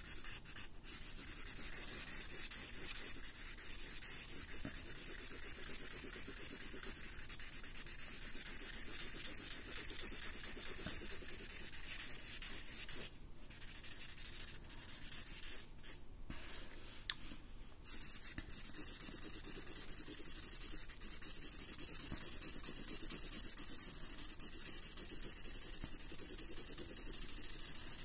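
Sharpie marker tip scratching across paper in rapid back-and-forth strokes, filling in black areas of a drawing. A few short pauses about halfway through, where the pen lifts.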